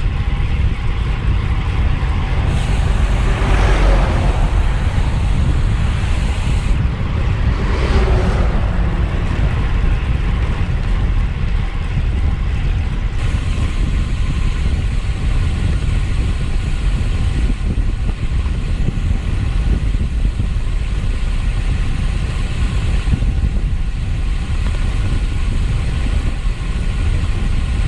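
Wind buffeting the camera microphone on a road bike ridden at speed: a loud, steady rush with a heavy low rumble, swelling briefly around four and eight seconds in.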